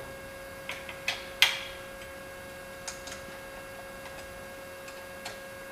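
Scattered light clicks and taps of metal parts being handled while a CNC router's ball screw mount is seated by hand and an Allen key is fitted to a screw, the loudest about one and a half seconds in. A steady faint hum runs underneath.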